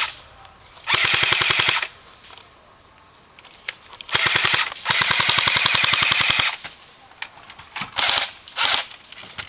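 Airsoft electric guns firing full-auto bursts close by, a rapid even clatter of shots: one burst about a second in, a short burst and a longer burst in the middle, then two brief bursts near the end.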